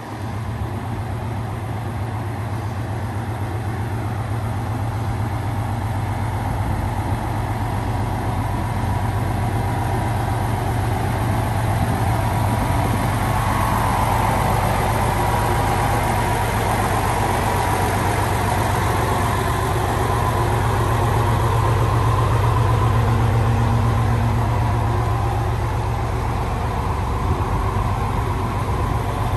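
Chizu Express HOT3500-series diesel railcar standing at the platform with its diesel engine idling, a steady low drone. It grows somewhat louder over the first ten seconds or so, then holds steady.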